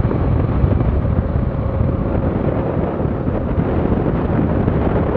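Wind buffeting the microphone: a loud, steady, low rumbling noise that wavers in level.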